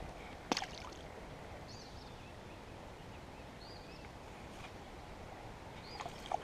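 Steady rush of the river's flowing water, with a bird giving short chirps about every two seconds and one sharp click about half a second in.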